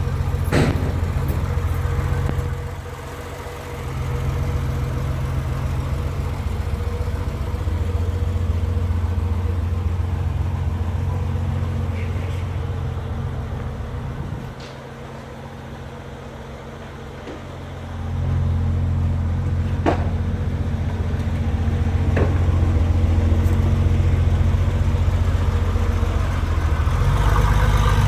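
A motor running steadily at one pitch. It goes quieter twice for a few seconds and comes back up, with a few light clicks.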